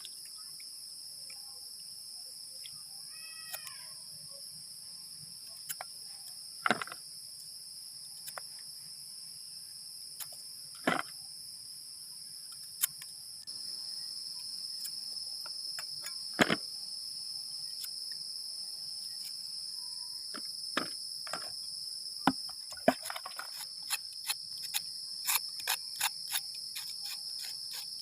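Steady high-pitched chorus of crickets and other insects. It is broken by scattered single knocks and clatters, and a quick run of clicks near the end.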